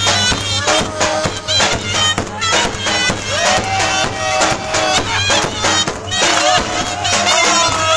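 Live Turkish folk dance music: a loud, reedy wind instrument plays a quick, ornamented melody over a large bass drum (davul) beaten in frequent strokes.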